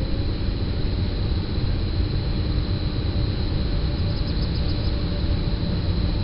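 Electric locomotive at the head of a passenger train running steadily at the platform, a low rumble under a steady hum and a high whine from its electrical equipment and blowers.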